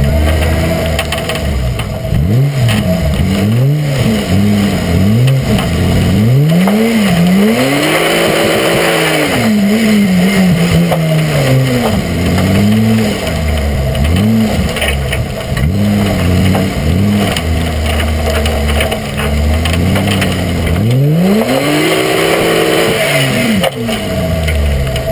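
Mitsubishi TJ Magna's engine revving up and down again and again as the car is driven hard around a muddy gymkhana course. There are two bursts of rushing hiss, about a third of the way in and near the end.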